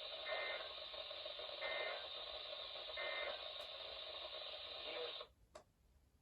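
Three short SAME data bursts from NOAA Weather Radio over steady radio hiss, evenly spaced about a second and a half apart: the end-of-message signal that closes the weekly test. The receiver audio cuts off suddenly about five seconds in.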